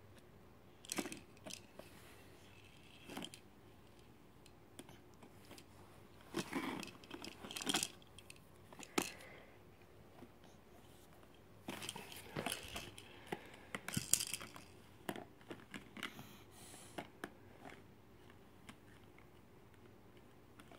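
Plastic rings of a baby's ring-stacking toy being handled, clicking and knocking together in scattered small clusters with quiet gaps between.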